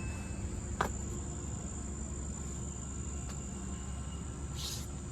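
Steady high-pitched insect chirring, typical of summer crickets, over a low steady rumble, with a sharp click about a second in and a brief hiss near the end.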